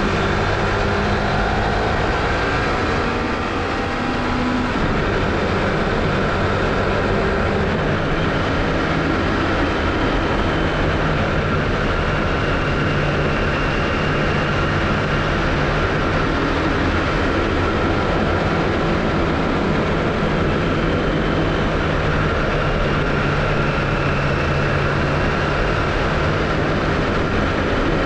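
Honda CBF500's parallel-twin engine running while the motorcycle is ridden at a fairly steady speed, with wind and road noise. The engine note eases briefly about three to four seconds in, then holds steady.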